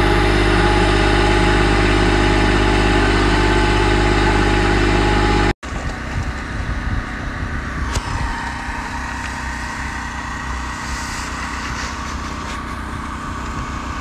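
Engine of a small red tracked machine running at a steady speed, loud and close, stopping abruptly about five and a half seconds in. After that a quieter engine rumble carries on, with one sharp click about eight seconds in.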